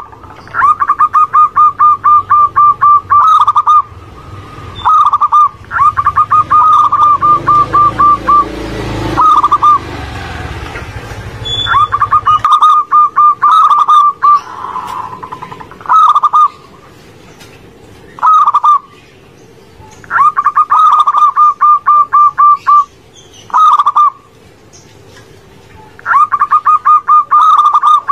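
Zebra dove (perkutut) song: a short opening note followed by a fast run of staccato cooing notes, repeated in phrases of about two seconds with short gaps. A low rumble lies under the first half.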